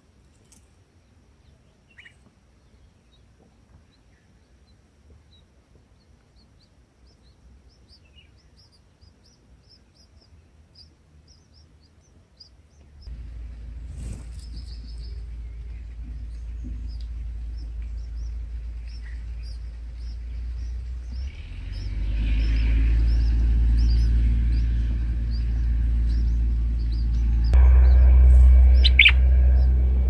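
Red-whiskered bulbuls at the nest chirping: short high cheeps about twice a second, carrying on as a parent arrives to feed the chicks. About halfway in, a low rumble starts and grows louder in steps, becoming the loudest sound.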